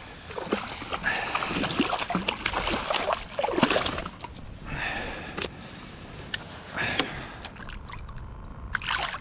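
A small hooked snook thrashing at the surface beside a kayak, making irregular splashes and water sloshing as it is brought to the boat and grabbed by hand.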